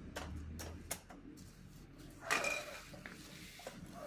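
Plastic-wrapped steel trampoline frame tubes being handled and fitted together: a few light clicks and knocks, and a short crinkling rustle of the plastic wrap about two seconds in.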